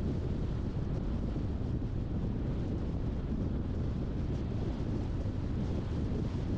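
Car driving along a road: a steady low rumble of tyre and road noise.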